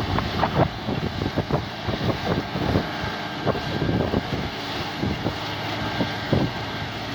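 Tractor engine running under load while ploughing, with irregular wind buffeting on the microphone.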